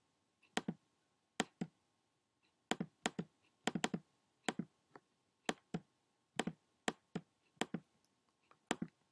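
Repeated sharp clicks of a computer mouse button as a misspelled word is right-clicked, many coming in quick pairs, about two to three clicks a second.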